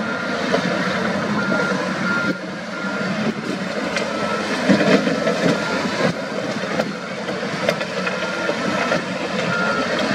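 Diesel engines of a wheel loader and a bulldozer working soil, running steadily under load. A reversing alarm beeps repeatedly in the first few seconds and again near the end.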